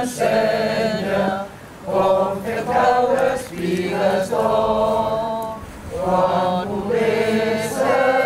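A small group of people singing a song together in unison, unaccompanied, in long held phrases with short breaks between lines.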